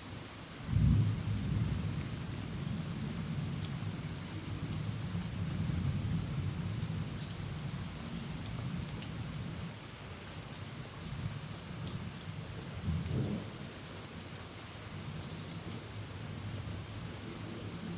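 Heavy rain pattering steadily on a corrugated tin roof, with a sharp thunderclap about a second in that rolls on as a low rumble for several seconds, and a second, shorter clap near the middle. Faint high chirps repeat every second or two.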